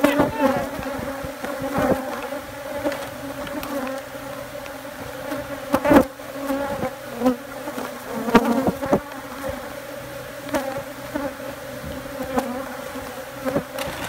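A mass of disturbed Africanized honeybees buzzing all around, a steady loud drone, as their colony is cut out from under wooden floorboards. A few sharp knocks sound through it, the clearest about six seconds in and twice more a little after eight seconds.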